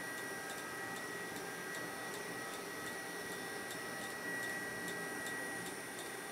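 The exposed tape transport of a 1974 Akai VT-150 reel-to-reel video tape recorder running in play: a quiet steady high whine with a light ticking at an even pace. Its take-up drive is slipping, which is put down to a rotted rubber roller.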